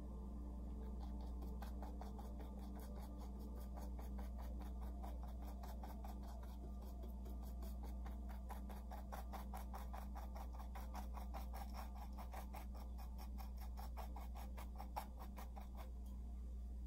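Paintbrush scrubbing and dabbing paint onto a canvas in quick, short, even strokes, about five a second. The strokes start about a second and a half in and stop shortly before the end, over a steady low hum.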